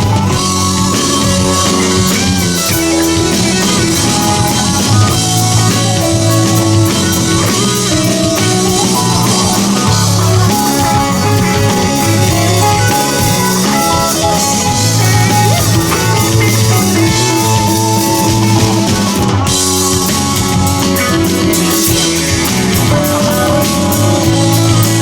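Live rock band playing an instrumental jam on guitar, bass, drum kit and keyboards, with held melodic notes over a steady beat.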